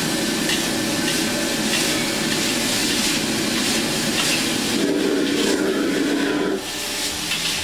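Prawns wrapped in long beans being stir-fried in a wok, hissing and sizzling in hot oil and sauce over a gas wok burner as the ladle works them. A hum joins about five seconds in, and the sound drops a little over a second later.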